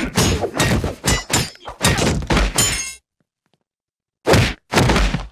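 Cartoon fight sound effects: a rapid flurry of punches, thuds and crashing, breaking hits. It cuts out completely for about a second after three seconds in, then more hits follow.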